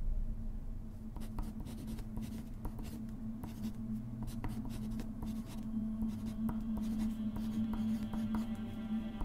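Handwriting on paper: a pen point scratching in many quick, short strokes, over a low steady hum. Soft sustained musical tones come in a little past halfway.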